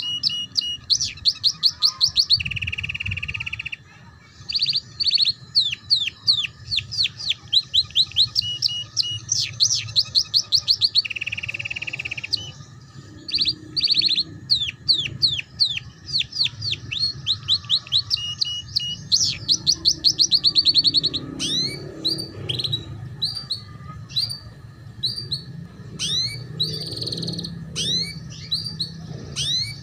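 Domestic canary singing in the rapid trilling 'ngeriwik' style used as a tutor song for young canaries: fast runs of sharp downward-sweeping notes, broken twice by a longer buzzy roll, about two seconds in and again around eleven seconds.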